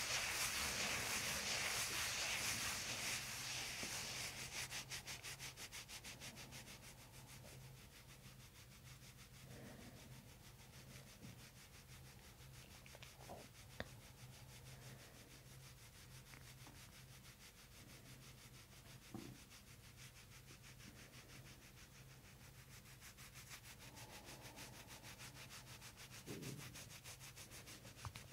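Hands rubbing and kneading over skin and a fabric top on a person's upper back during soft-tissue work, a hiss of friction that is loudest in the first few seconds and then faint. A few faint ticks come in the middle and near the end.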